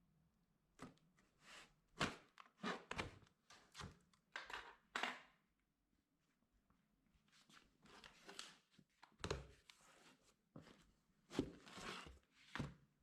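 Cardboard box being opened and handled by hand: a string of thuds, knocks and scraping, rustling cardboard noises in two bursts, with a short quiet pause about six seconds in.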